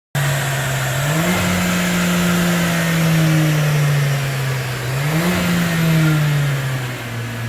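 Mercedes-AMG A45's turbocharged four-cylinder engine revving: engine speed climbs quickly about a second in and eases down slowly, then climbs again about five seconds in and falls away near the end.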